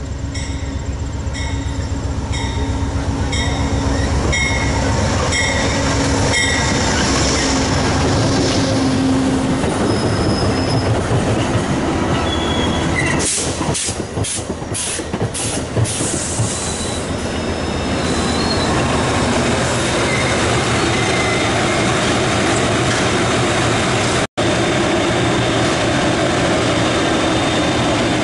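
An Amtrak passenger train coming in close past the platform. Early on there is a locomotive's diesel rumble and wheels clicking over rail joints about twice a second. Then the passing coaches make a steady rolling rush with thin, high wheel squeal.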